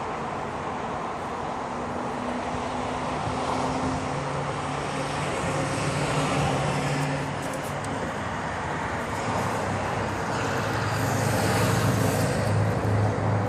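Road traffic: the continuous rumble of passing vehicles, with an engine hum that grows louder near the end.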